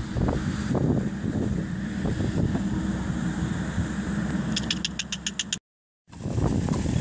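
Wind buffeting the microphone, a loud uneven low rumble. Near the end it is interrupted by a quick run of about eight sharp high ticks, then drops to silence for half a second before the rumble returns.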